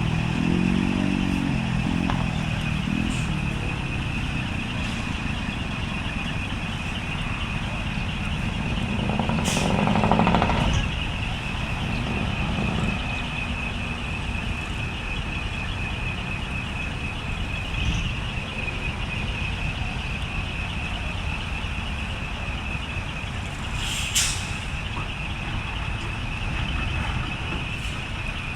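Decorated trucks' engines running as trucks move about, with one engine swelling to the loudest point about ten seconds in. A short air-brake hiss comes about 24 seconds in, over a steady high tone.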